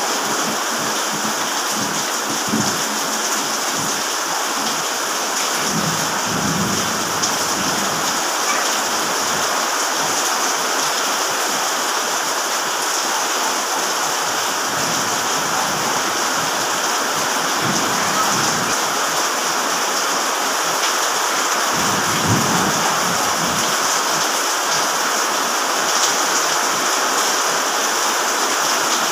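Steady rain pouring down, an even hiss, with a few brief low rumbles about six, eighteen and twenty-two seconds in.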